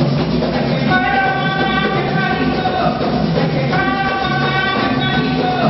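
Live folk music: a woman sings long held notes into a microphone over the group's accompaniment, the voice coming through a PA in a large hall.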